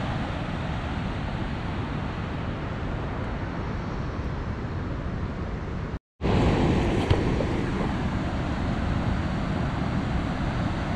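Steady rushing roar of water pouring from a dam's outlet. It cuts out briefly about six seconds in and then carries on.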